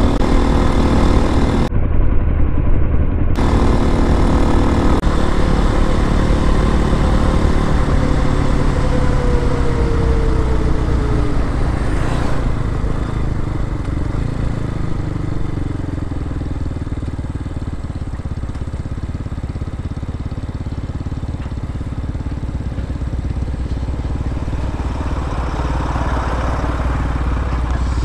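RPS Hawk-X 250 dual-sport motorcycle on the move, its single-cylinder engine running steadily under road noise. The engine note falls about a third of the way in and runs quieter through the middle as the bike eases off.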